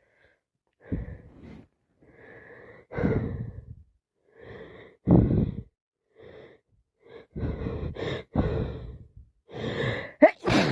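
A woman with a head cold and sinusitis breathing heavily through a congested, snotty nose: about a dozen short gasps and wheezy breaths, with a sharp, loud one near the end.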